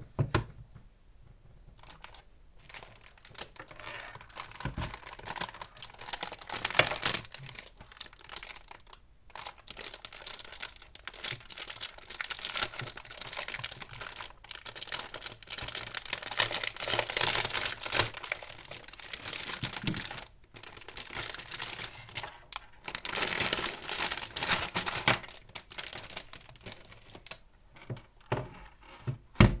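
Plastic packaging crinkling and rustling as a new mechanical keyboard is unwrapped, in long bouts with a few short pauses. There is a sharp knock just after the start and another near the end.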